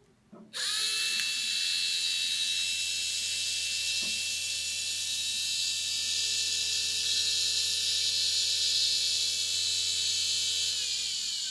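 Small DC motor with a sanding backing pad on its shaft, fed 12 volts, spinning up with a rising whine about half a second in, then running at full speed with a steady high whine and hiss, and winding down with falling pitch near the end.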